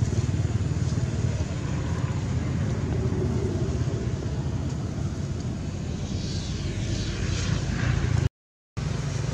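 A motor running steadily with a low drone, with faint high chirps about six to eight seconds in.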